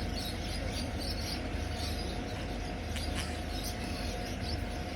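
Small caged birds chirping faintly and irregularly over a steady background hum.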